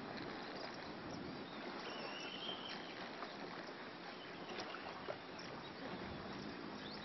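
Steady riverside ambience, an even hiss, with a few faint knocks and a brief high chirp about two seconds in.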